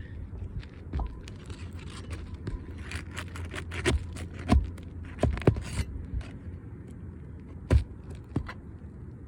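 Irregular scraping and clicking of hand tools working under asphalt roof shingles to pry out a damaged shingle and its nails, with three sharper knocks about four and a half, five and a half and nearly eight seconds in.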